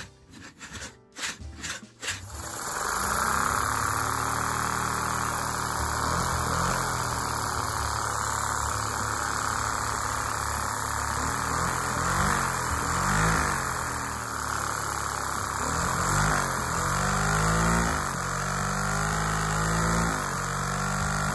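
Lego one-cylinder vacuum engine running on vacuum-cleaner suction. A few clicks come first, then about two seconds in a steady loud rushing whine starts. Under it, the engine's hum rises and falls in pitch again and again as its speed changes.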